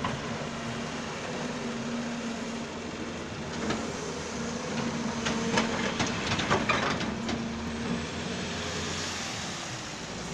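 Doosan 140 excavator's diesel engine running steadily, with a series of sharp clanks from about three and a half to seven and a half seconds in.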